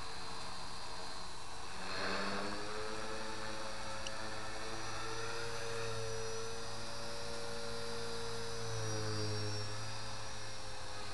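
Align T-Rex 450 Pro electric RC helicopter in flight at a distance: a steady hum of rotor and motor whose pitch drifts gently up and down as it manoeuvres, with a short burst of rushing noise about two seconds in.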